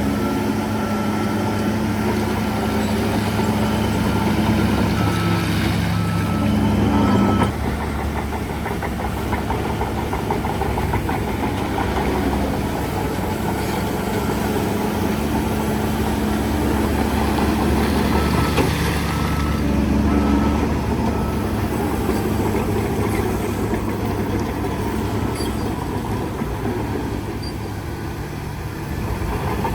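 Heavy diesel engine of construction machinery running under load, its note rising for several seconds and then dropping sharply at about seven and a half seconds, before running on with gentle rises and falls in speed.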